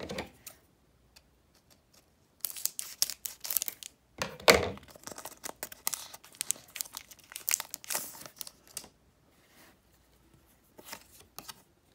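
Foil wrapper of a Pokémon Rebel Clash booster pack crinkling and tearing in bursts as it is ripped open by hand, loudest about four and a half seconds in. A few faint clicks near the end as the cards inside are handled.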